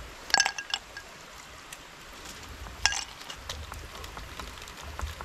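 A few sharp clinks of hard objects knocking together: a quick cluster about half a second in and one more near three seconds, over a steady background hiss.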